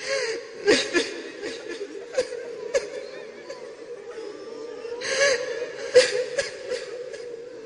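A Quran reciter weeping at the microphone, his recitation broken off: irregular sobs and sharp gasping breaths, the strongest about a second in and again about five to six seconds in.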